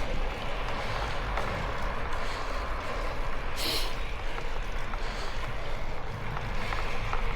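A cyclist's heavy, labouring breathing on a steep climb: hissing exhalations every couple of seconds, the loudest about halfway through, over steady wind noise on the microphone.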